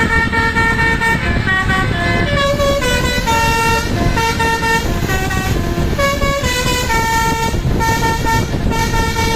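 A bus's telolet basuri multi-tone air horn playing a tune, stepping from note to note a few times a second, over the low rumble of the bus.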